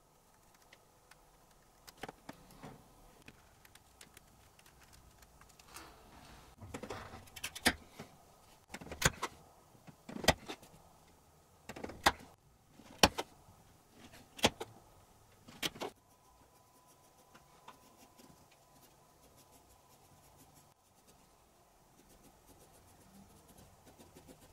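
Craft knife cutting a thin wooden strip into small squares against a plywood board: faint scraping strokes, then about seven sharp clicks roughly a second apart as the blade presses through piece after piece.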